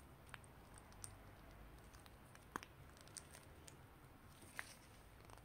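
Near silence with a few faint, light clicks scattered through it: a brush or spatula tapping a small mask bowl while clay mask is put into it.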